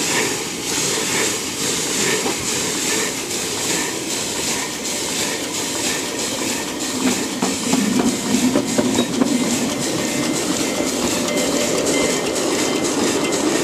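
A 7.5-inch gauge live steam locomotive, a Little Engines 2-6-0, pulling away under steam: a loud hiss with regular exhaust chuffs from the stack that come faster as it gathers speed. The rumble of its wheels on the rails grows louder in the second half.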